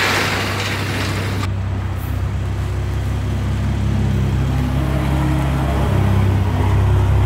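Toyota GR Supra's B58 turbocharged inline-six idling as the car rolls slowly into the garage, a steady low exhaust drone whose tone shifts slightly about six seconds in. A rushing hiss sits over it for the first second or so.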